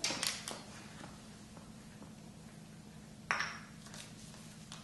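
A few light clicks, then a single sharp clink with a short ringing ping a little over three seconds in, as small hard objects are handled, over a low steady hum.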